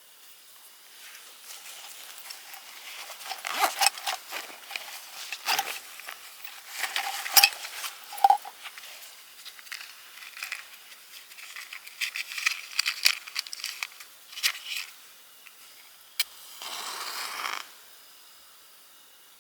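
Irregular clicks, knocks and light clattering of objects being handled, with a hiss-like scrape lasting about a second near the end.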